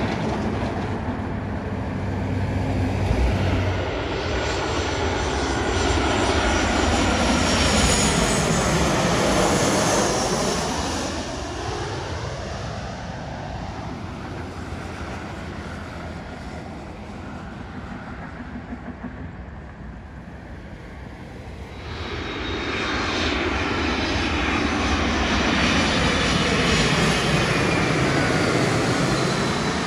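Jet airliners on landing approach flying low overhead, heard as jet engine noise with a sweeping whoosh as each passes. The noise is loud in the first third, falls away near the middle, and builds again from about two-thirds in as a FedEx Boeing 767-300 freighter comes over.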